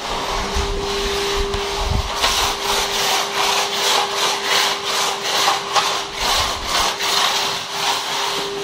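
Rhythmic rasping strokes, about two or three a second, over a steady hum.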